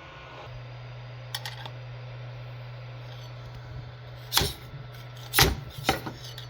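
Steady low hum with a couple of light clicks, then three louder knocks or clicks near the end.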